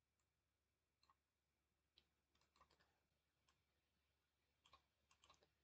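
Near silence, with faint, scattered computer mouse clicks, a few in quick succession near the end.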